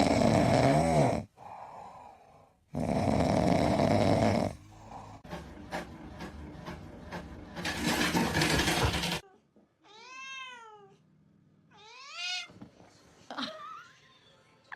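A cat meowing: two separate meows about ten and twelve seconds in, each rising and falling in pitch. Before them come several loud rushing stretches lasting one to four seconds each.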